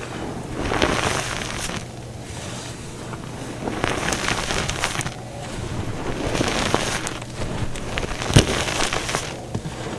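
Dyed gym chalk being crushed and crumbling, a dense crackling crunch that comes in waves every couple of seconds, with one sharper snap about eight seconds in.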